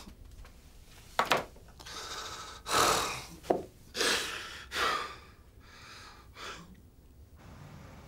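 A man breathing hard and sobbing in distress, a run of separate loud breaths that stops about half a second before the end.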